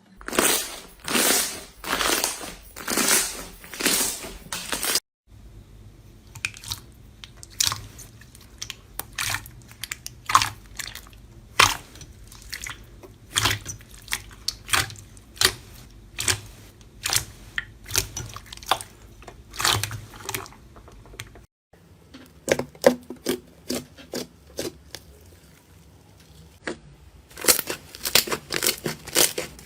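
Slime being squeezed and worked by hand, giving quick irregular runs of crackly pops and clicks that break off suddenly a few times.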